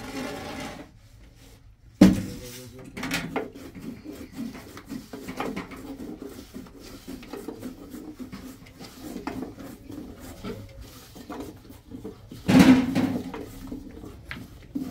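Irregular knocks and clatter of cooking vessels and utensils being handled, with a sharp knock about two seconds in and a louder stretch of clatter near the end.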